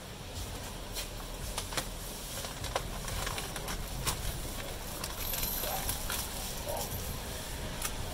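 Brown food-wrapping paper being folded around a portion of rice, crinkling and rustling, with sharp crackles scattered through, over a steady low hum.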